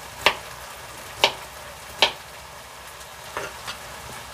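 Kitchen knife chopping carrots on a wooden cutting board: three sharp knocks about a second apart, then two softer ones near the end.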